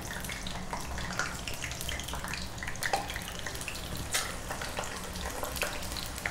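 Chicken and potato-slice skewers deep-frying in hot oil in a kadai: a steady sizzle with scattered small crackles and pops.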